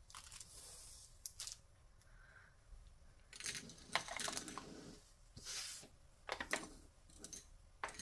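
Painted metal round spring ring clasps being swept and slid across a tabletop by hand: irregular light clicks and clinks as the rings knock together, with short sliding rustles, busiest about halfway through.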